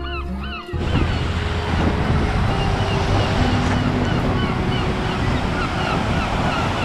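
Surf washing in over the sand, with wind buffeting the microphone, cutting in suddenly under a second in. Faint music plays underneath.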